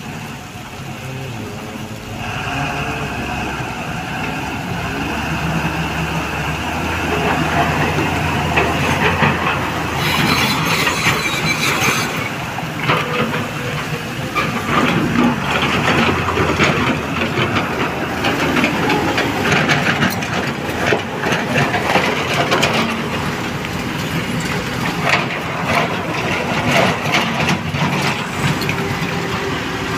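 Loaded Tata Prima dump truck's diesel engine pulling away, rising in level about two seconds in, with continuous rattling and clanking from the truck and a brief hiss about ten seconds in.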